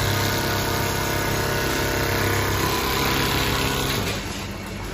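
Richpeace automatic sewing machine running while it stitches quilting channels through a sleeping bag: a steady mechanical hum with a low drone. It eases off a little about four seconds in.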